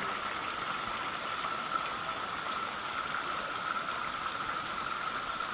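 Small woodland creek, water running steadily.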